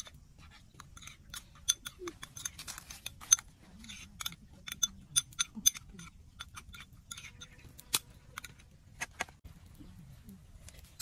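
Metal spoon clinking and scraping against a small ceramic bowl while stirring a sauce: an irregular series of light, ringing taps.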